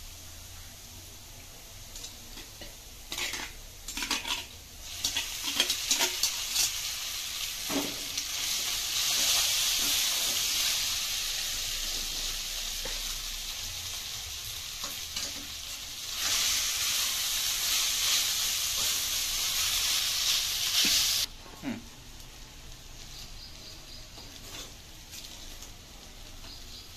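Boiled vermicelli (semiya) sizzling in hot oil in a kadai with the vegetables, and a spatula scraping and knocking against the pan as it is stirred in. The sizzle swells twice, loudest in the second half, and stops suddenly about two-thirds of the way through.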